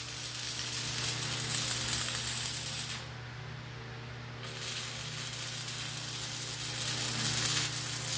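Stick-welding arc from a 6013 electrode of 1/8 inch at 140 amps, crackling and sizzling. It stops about three seconds in and is struck again about a second and a half later, over a steady low hum.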